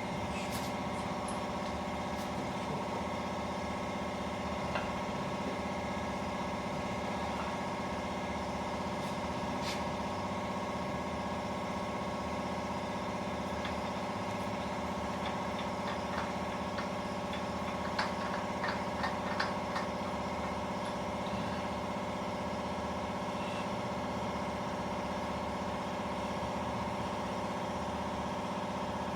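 A steady mechanical hum made of several even tones, with a quick run of light clicks and taps a little past the middle.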